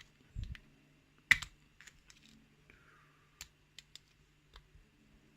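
Scattered sharp metal clicks and taps as a screwdriver pushes a circlip off the back of a lock cylinder, the loudest about a second in, with a dull knock just before it.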